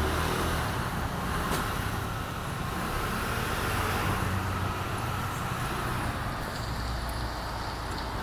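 Steady background rumble and hiss with a low hum, like road traffic, with no distinct event.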